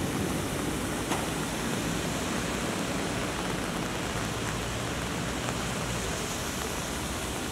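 Steady hiss of heavy rain and water on a flooded road, with a low drone of vehicle engines beneath it.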